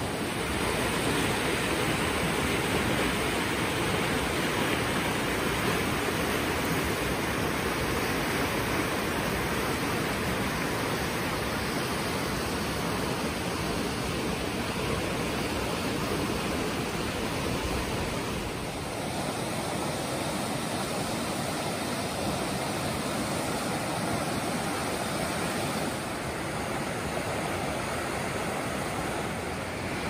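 Steady rushing of a flood-swollen creek, brown whitewater churning over its bed after heavy rain. The sound changes tone slightly about two-thirds of the way through.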